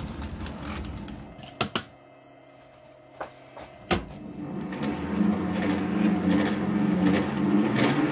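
A few sharp knocks in the first four seconds, then the Warco WM250V variable-speed lathe starts and its spindle runs with a steady mechanical hum that gradually gets louder.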